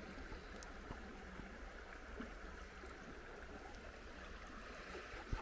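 Faint, steady running water of a river, with a light knock near the end.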